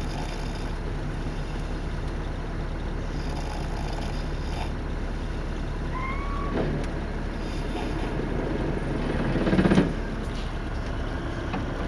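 Sleeping bus passengers snoring every few seconds over the steady hum of the bus engine in the cabin. The loudest, roughest snore comes near the end.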